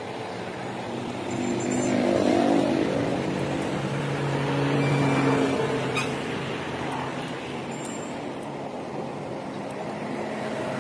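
Battered fritters deep-frying in a large kadai of hot oil, bubbling and sizzling as a wire skimmer stirs them, under a low motor-like hum that swells twice.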